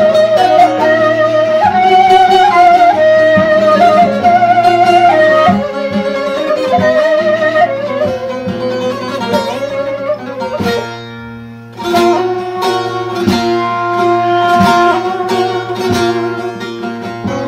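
Instrumental background music: a wavering melody over a steady low drone. After a brief dip about eleven seconds in, a run of plucked string notes follows.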